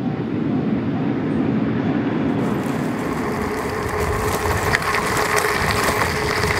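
Mountain bike tyres rolling over the road surface, then crunching over gravel from about two and a half seconds in, with a scatter of small clicks from stones.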